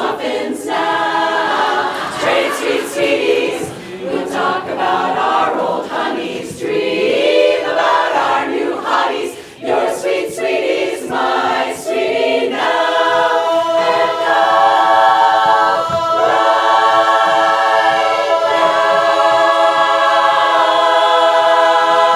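A cappella barbershop chorus singing the end of a song. The chords move for about twelve seconds, then the chorus holds a long final chord to the close.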